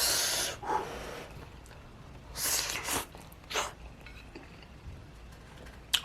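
A person's breathy mouth and breath sounds while eating extremely spicy ghost pepper instant noodles: a few short, sharp breathy bursts with quiet gaps between them.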